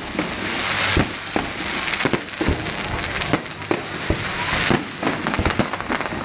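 Aerial fireworks bursting in quick succession: many sharp bangs over a crackling hiss that swells about a second in and again near the five-second mark.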